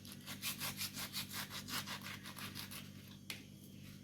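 Kitchen knife scraping back and forth in quick, even sawing strokes, about five a second, that stop nearly three seconds in, followed by a single sharp click.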